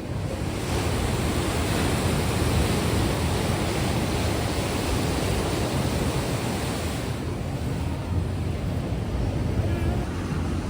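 Ocean surf breaking in a steady wash, with wind rumbling on the microphone. About seven seconds in, the higher hiss of the surf eases, while the low rumble goes on.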